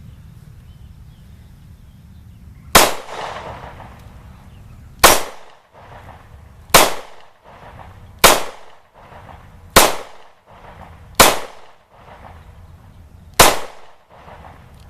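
Seven shots from a Ruger LC9 9mm pistol, fired one at a time about one and a half to two seconds apart, each followed by a brief echo.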